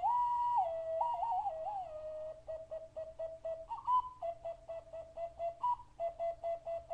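Clay ocarina being played: one pure whistling note that slides up and down between a lower and a higher pitch. From about two seconds in it is broken into quick, even pulses of about four notes a second, with a few jumps to the higher note.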